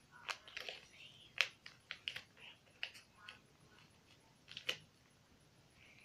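Faint handling and folding of a sheet of paper: scattered light crinkles and clicks, the sharpest about one and a half seconds in and again just under five seconds in, with quiet stretches between.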